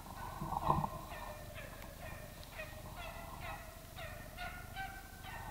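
Drever hound whining: a quick series of short, high, wavering cries, about three a second.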